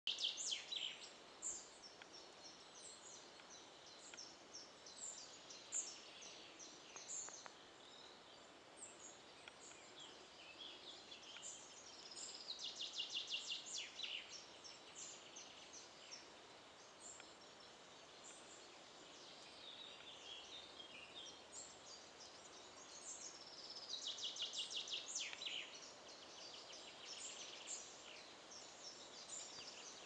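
Forest songbirds singing and calling: many short chirps and whistles all through, with a rapid trill about twelve seconds in and again about twenty-four seconds in.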